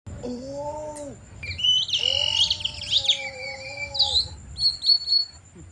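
Human mouth-whistled birdsong imitation. A low hummed vocal tone comes first, then high, quickly warbling whistled chirps over a steady hum. It ends with a few short high whistles.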